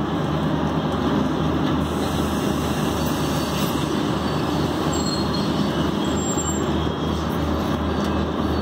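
Passenger train coach rolling slowly along a station platform: steady running noise of wheels on rails, with a low steady hum underneath.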